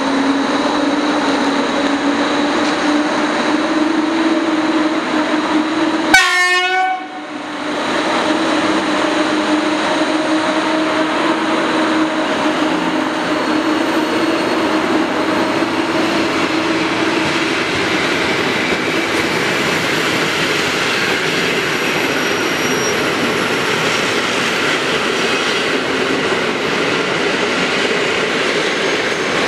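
EP08 electric locomotive pulling out with a whine that slowly rises in pitch as it gathers speed. About six seconds in there is a brief, very loud horn blast, then a steady rolling rush as the passenger coaches run past.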